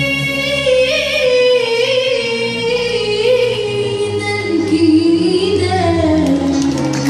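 Live Arab ensemble music: singers and bowed violins hold long notes, the melody sliding slowly downward, with plucked qanun and oud.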